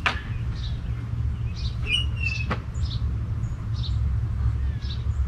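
A bird calling over and over, a short high chirp about every half second, above a steady low rumble. Two sharp clicks stand out, one at the very start and one about two and a half seconds in.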